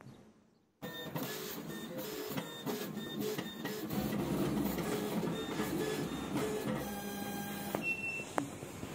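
Teneth sheet-fed label cutting plotter running a cutting job, starting about a second in: its stepper motors whir in short tones that keep changing pitch as the blade carriage and feed rollers move the sticker sheet.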